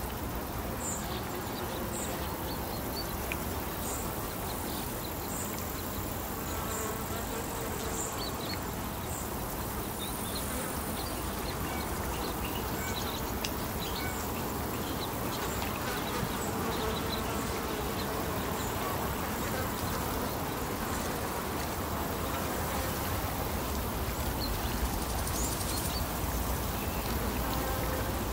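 Lakeside outdoor ambience: a steady wash of water and wind noise with insects buzzing. Short high chirps repeat about once a second through the first half, and a low rumble grows toward the end.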